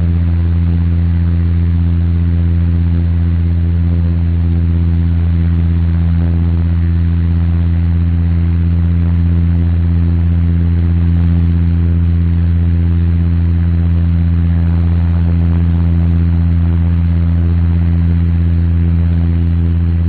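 Airliner cabin noise in level flight: a steady, loud low engine drone with several held tones, under an even hiss of air rushing past the fuselage.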